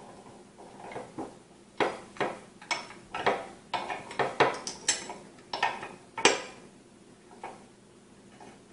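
Small metal parts clinking as screws and the metal base plate of a monitor-arm desk mount are handled: about fifteen short, sharp, irregular clicks, bunched in the middle and thinning out near the end.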